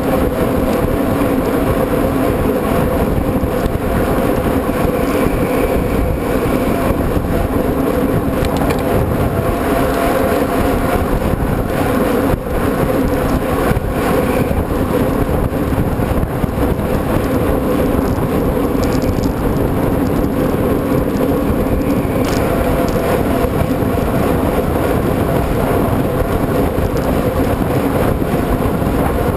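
A mountain bike being ridden: steady rolling and wind noise with an even hum underneath.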